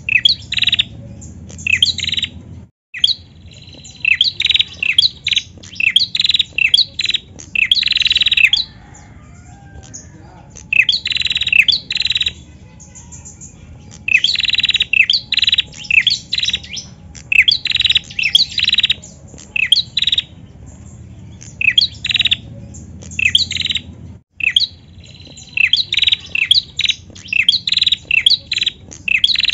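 Female tailorbird (prenjak) calling in repeated phrases of rapid, sharp, high chip notes, each phrase lasting a second or a few seconds, with short pauses between.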